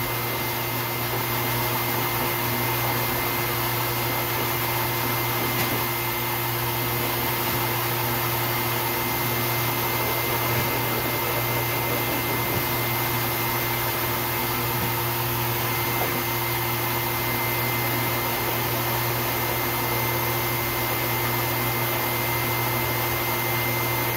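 High-velocity pet dryer blowing a dog's wet coat dry through its hose: a steady, unbroken rush of air with a constant motor whine that includes a high tone.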